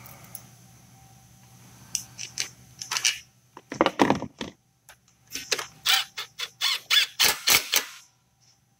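Irregular metallic clicks, knocks and rattles of tools working a bolt on the engine as a ground wire is fastened to it, coming faster in the second half and stopping shortly before the end.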